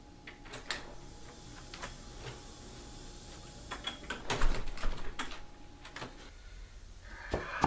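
A front door being opened and shut, its knob and latch clicking, with a few scattered knocks; the loudest knocks come about four and a half seconds in.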